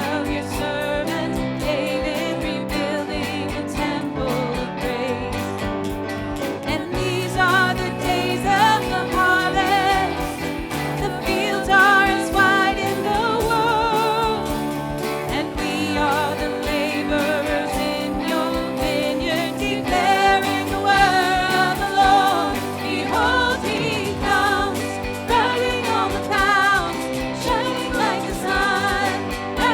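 Worship music with singing: a sung melody with vibrato over steady instrumental accompaniment.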